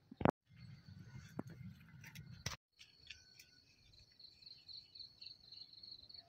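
Insects chirring in a steady, rapidly pulsing high trill from about three seconds in. Before that, a sharp click, a stretch of low rumbling handling noise, and two brief dropouts in the sound.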